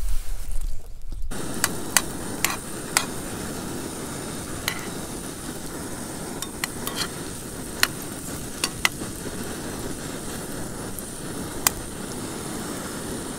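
Sliced mushrooms sizzling in a small camping frying pan, with a metal spork stirring them and clicking against the pan at irregular moments. The sizzling starts about a second in, after a loud low rumble.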